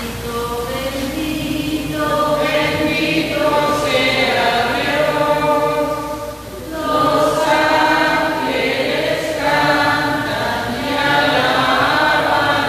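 Voices singing a slow hymn in long held notes, with short breaks between phrases every few seconds.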